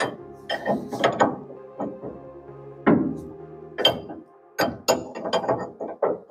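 Ratcheting wrench clicking and clinking in irregular strokes on a tie rod end nut, with a quick run of sharp metallic clicks near the end.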